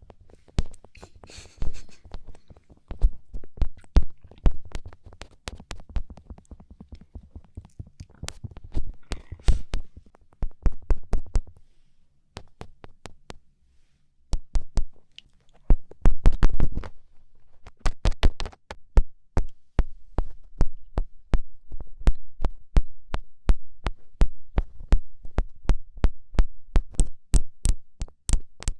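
Fingertips poking and tapping close on a microphone: quick, irregular taps in clusters, each with a dull low thud, with a brief lull partway through.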